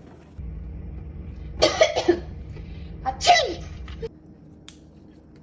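A girl coughing in a quick cluster of three or four coughs, then a loud put-on sneeze, "atchim!", about three seconds in. The noises are made on purpose to cover up eating.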